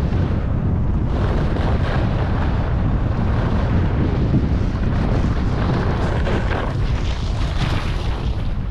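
Wind buffeting the microphone of a skier's helmet camera during a fast run, a constant heavy rumble, with the hiss and scrape of skis carving over packed groomed snow rising and falling with the turns.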